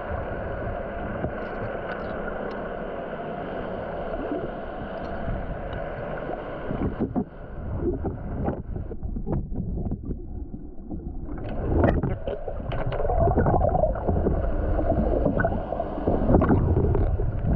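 Sport-fishing boat on open water: a steady rush of water and motor noise with wind on the microphone, and a few scattered knocks and clatters in the second half.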